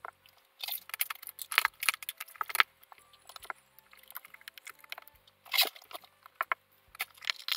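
Quick clicks and rattles of power-supply cables and plastic connectors being handled and plugged into a PC motherboard, in bunches about a second in and again past five seconds, over soft background music.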